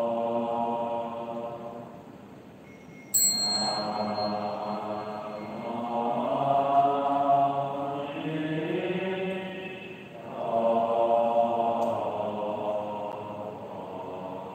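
Slow Buddhist devotional chanting in long drawn-out sung phrases, the notes held and gliding in pitch. About three seconds in a sharp struck sound cuts in and rings briefly.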